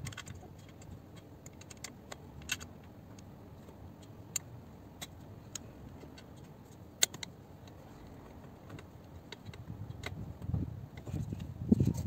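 Scattered small metallic clicks and clinks of a Torx 30 driver working screws into a car seat's steel frame, with a few sharper clicks, and louder handling and rustling near the end.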